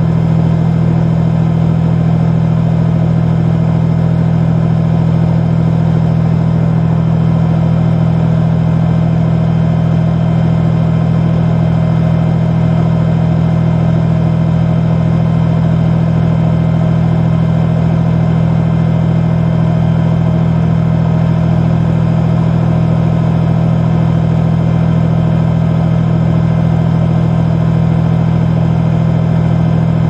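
Tank engine running steadily: a loud, low, even drone that holds the same pitch throughout, with no clanks or changes in speed.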